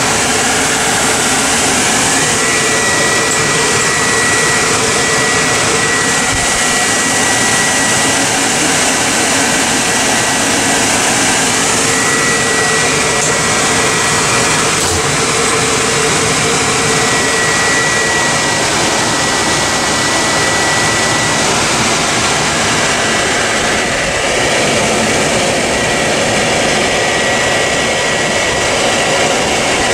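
Steady, loud rushing machine noise with a thin, high whine held through it.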